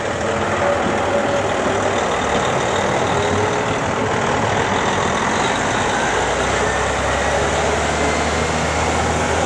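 Steady noise of a large motor vehicle's engine running, with a low hum that grows stronger about six seconds in.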